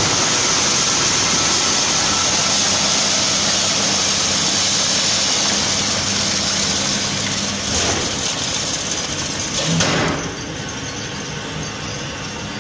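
Batch-type seed treater running through a coating batch: a steady mechanical hum with a high hiss, which drops noticeably about ten seconds in.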